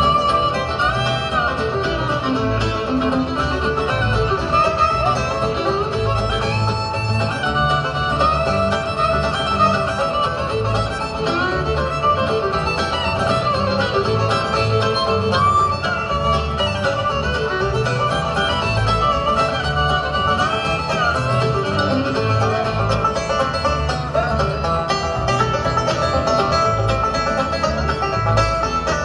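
Bluegrass band playing live: fiddle, strummed acoustic guitars and banjo together over a steady low beat.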